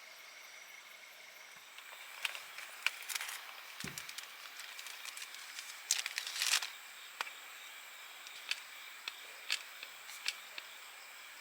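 Steady high insect buzz, with a run of crackling, rustling clicks about two to seven seconds in, loudest around six seconds, a single low thump near four seconds, and a few separate clicks after that.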